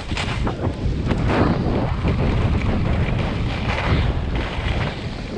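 Wind buffeting the camera's microphone: a loud, rough low rumble with hiss over it, surging now and then.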